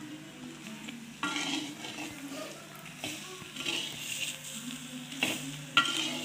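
A spatula stirs and scrapes a mix of onions, grated coconut, tomato and spice powders sautéing in oil in a clay kadai, with a light sizzle. Several uneven scraping strokes come through, the loudest near the end.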